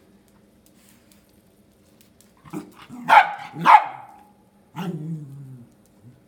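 Pomeranian barking at a millipede: two sharp barks about three seconds in, then a lower, falling bark or grumble near five seconds.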